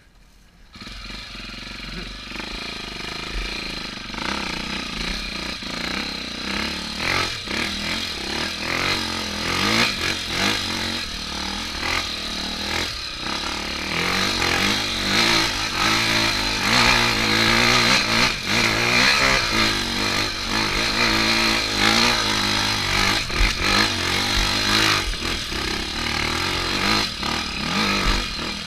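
Trail motorcycle with a Honda Tornado single-cylinder four-stroke engine, running under load and revving up and down as it climbs a steep dirt trail. The engine comes in about a second in and grows louder in the second half.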